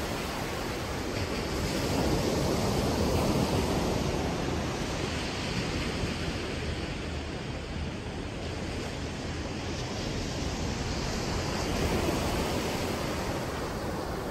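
Ocean surf breaking and washing up a sandy shore, a steady rushing that swells and eases with the waves, with wind rumbling on the microphone.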